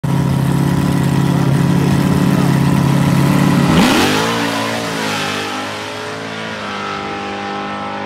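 Drag-race car engines held at steady revs on the starting line, then about four seconds in they launch, the pitch sweeping sharply up as the cars accelerate away down the strip and fade with distance.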